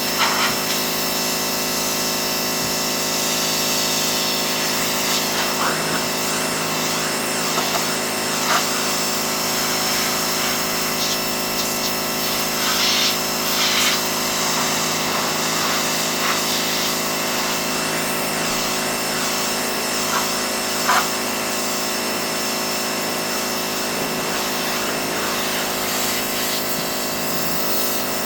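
Pressure washer running steadily, a constant machine drone under the hiss of the high-pressure spray, with a few brief louder spatters.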